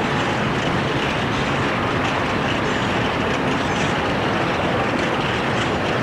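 Steady, even rushing background noise with a few faint, short high chirps over it.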